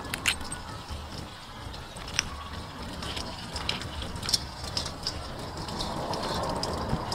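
Small crabs being handled in a stainless steel bowl: scattered sharp clicks of shells and legs against one another and the metal, over a faint steady background.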